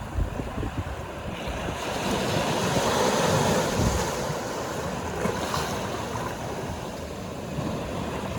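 Sea surf washing in and out, with wind buffeting the microphone in low gusts; the wash swells about two seconds in and eases off after.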